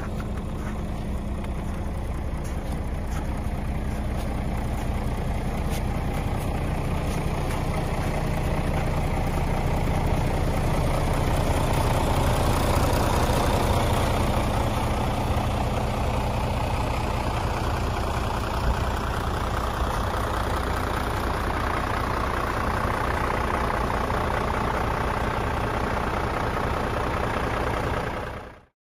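Scania 94D/260 truck's 9-litre five-cylinder diesel idling steadily, getting a little louder partway through and then slightly quieter.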